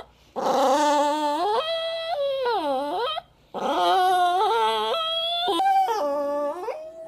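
A chihuahua–basenji mix dog crying in two long, howl-like whines that waver up and down in pitch, with a short break about three seconds in.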